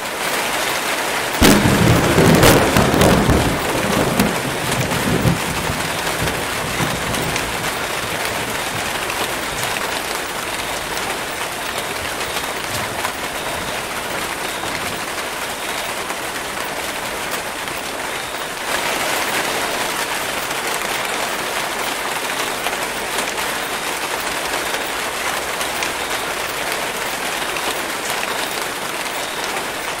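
Steady heavy rain pouring on forest foliage. About a second and a half in, a clap of thunder breaks out and rumbles away over the next few seconds; near 19 seconds the rain grows a little louder.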